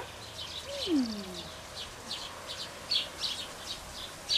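Small birds chirping rapidly and repeatedly in short high notes, with a short falling whine about a second in.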